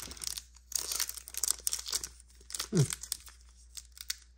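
Foil wrapper of a Pokémon Lost Origin booster pack crinkling and tearing as it is handled and opened, in dense crackly clusters. A brief low falling sound is heard about three seconds in.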